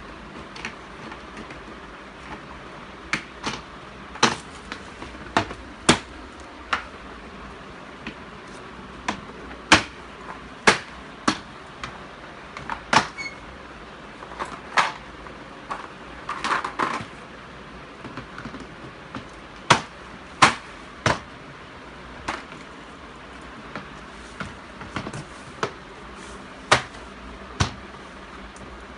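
Hard plastic panels of a kids' chest of drawers clacking and clicking as they are handled and fitted together, in sharp irregular knocks about once a second.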